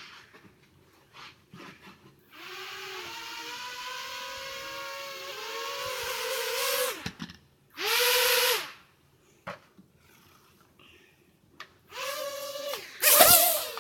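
Small toy quadcopter's motors and propellers whirring as it flies: several wavering tones that start about two seconds in, run for about five seconds and cut off, then come back in short spurts of under a second as the throttle is blipped, the loudest near the end.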